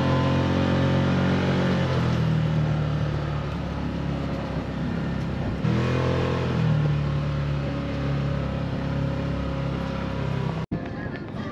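Can-Am 6x6 ATV engine running under throttle. Its pitch drops about two seconds in, rises in a short rev near the middle and then eases off again. It breaks off abruptly near the end.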